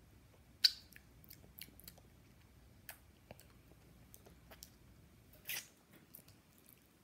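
Mouth sounds of a girl sucking on a sour hard-candy pacifier: scattered wet clicks and smacks, the sharpest about half a second in and a longer smack about five and a half seconds in.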